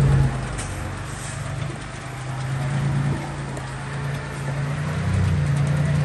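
Diesel engine of a construction machine running steadily, its level rising and falling.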